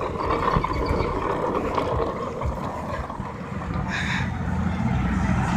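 Wind buffeting a phone's microphone during a bicycle ride: a steady rush of noise with heavy, fluttering low rumble.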